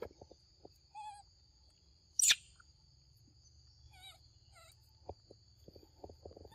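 Forest ambience: a steady high-pitched insect drone, with a few short wavering calls about one second in and again around four seconds. One loud, sharp squeal comes about two seconds in, and soft ticks and taps are heard near the end.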